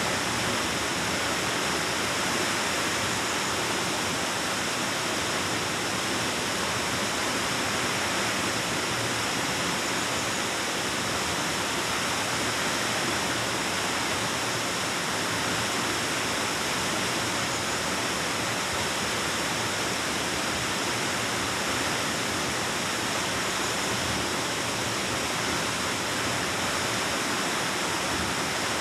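Waterfall rushing steadily: a constant, even roar of falling water with no breaks.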